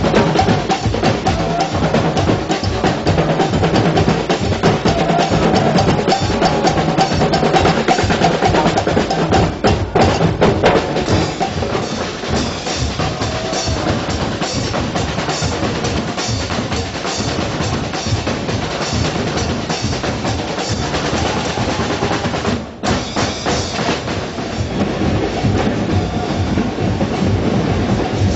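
Carnival drum band, drums beaten with sticks, playing a dense, steady marching rhythm. The sound drops out sharply for a moment about 23 seconds in.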